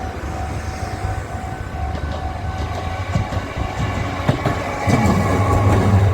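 Rail vehicles passing over a level crossing: wheels click and clack over the rail joints, with a low running rumble that swells about five seconds in.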